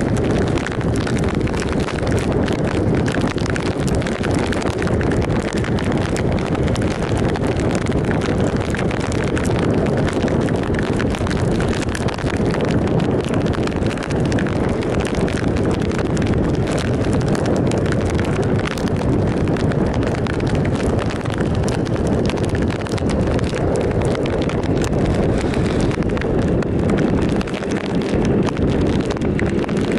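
Steady rush of wind buffeting the microphone on a moving 2007 Triumph Sprint ST 1050, its three-cylinder engine running underneath at a steady cruising speed, with tyres on a wet road.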